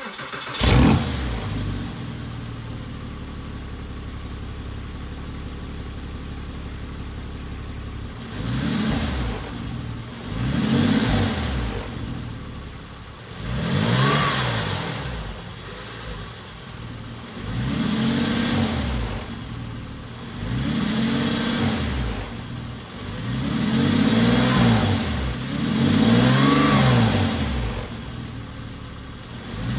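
Porsche 996 Carrera 4S flat-six engine starting through a DesignTek Valvetronic sports exhaust. It fires at the very start with a loud flare, idles steadily for several seconds, then is blipped about seven times, the pitch rising and falling with each rev.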